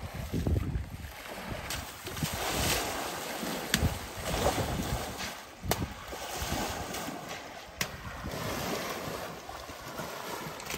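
An African elephant splashing the shallows with its trunk, water slapping and sloshing in irregular surges with a few sharp smacks. Wind buffets the microphone.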